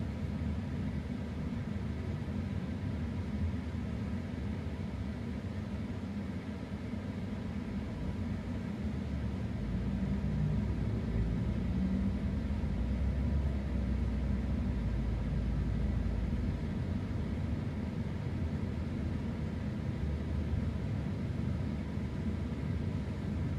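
Car driving along a road: a steady low rumble of road and engine noise, growing louder for a few seconds around the middle.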